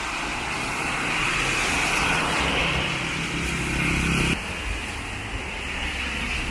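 Traffic on a rain-soaked avenue: tyres hiss on the wet road while an engine runs close by. The traffic sound cuts off abruptly about four seconds in, leaving a quieter wet-street hiss.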